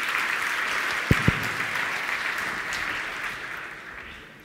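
Audience applauding, fading out toward the end. Two low thumps about a second in.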